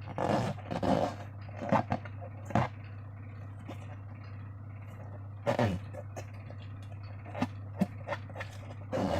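Slime and balloons being handled: irregular short squishes and rubs, a cluster near the start, a louder one about midway and a few smaller ones later, over a steady low hum.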